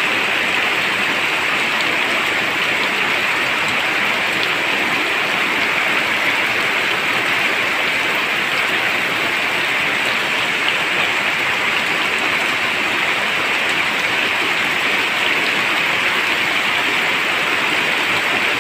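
Rain falling steadily onto flooded, muddy ground: an even hiss of drops splashing into standing water.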